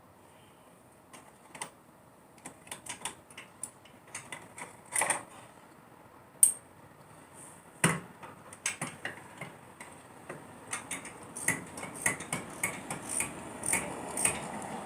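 Metal hand tools clicking and clinking while a replacement spark plug is fitted, with a knock about 8 s in. In the second half a socket ratchet clicks in quick runs as the plug is turned in.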